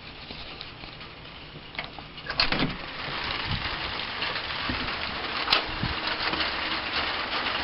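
A few knocks and clicks about two seconds in, then a steady hiss of falling rain, with one sharp click in the middle.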